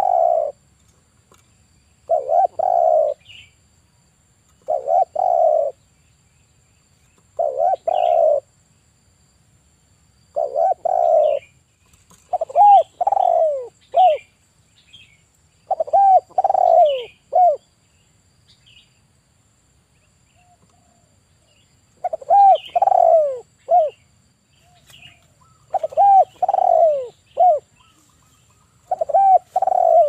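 Male spotted dove cooing repeatedly, a phrase about every two to three seconds; from about halfway on the phrases break into three or four short falling notes. Faint high chirps of small birds sound between the coos.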